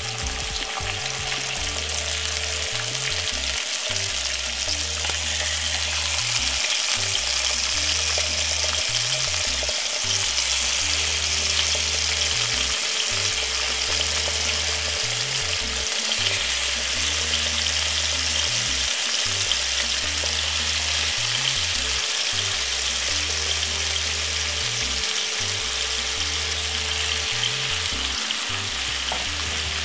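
Bacon frying in a little oil in a frying pan over medium heat, with a steady sizzle throughout.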